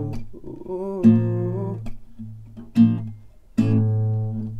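Acoustic guitar playing the song's closing chords: a few strums spaced about a second apart, each left to ring, the last one about three and a half seconds in.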